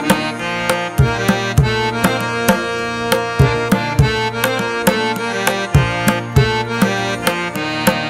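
Background music: sustained instrumental tones over a steady hand-drum beat of about two to three strikes a second.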